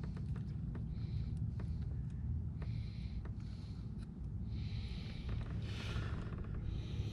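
Faint clicks and rustles of a largemouth bass being handled and unhooked by hand, over a steady low rumble.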